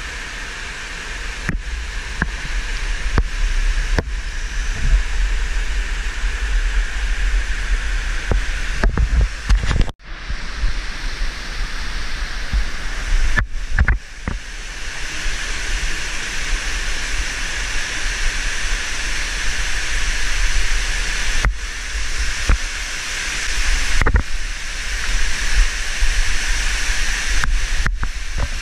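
Waterfall and whitewater rushing loudly and steadily in a narrow canyon, with a few brief knocks scattered through and a sudden short break about ten seconds in.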